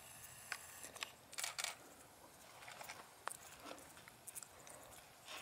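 Faint camera handling noise: scattered small clicks and a few short rustles over quiet outdoor background.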